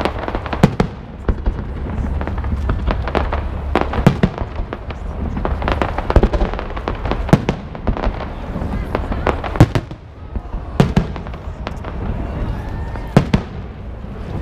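Fireworks display going off: a string of sharp bangs about every second, some in quick pairs, over crowd voices.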